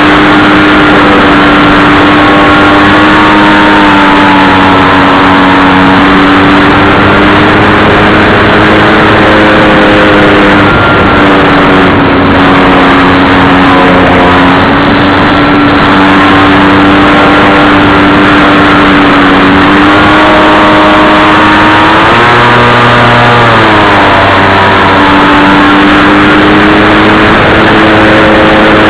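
RC plane's motor and propeller running, loud and steady with a dense rushing noise, the pitch drifting up and down gently with throttle; about 22 seconds in it drops sharply, then climbs back up about two seconds later.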